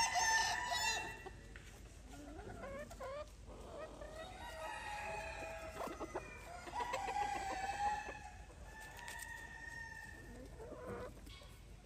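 Ayam Cemani chickens: roosters crowing and hens clucking, several calls overlapping, loudest in the first second, with more long crows midway.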